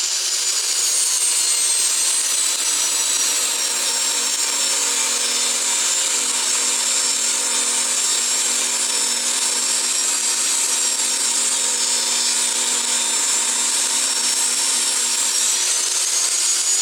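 Kobalt table saw running and cutting wood: a steady saw noise with a high motor whine that drifts a little in pitch as the blade is loaded.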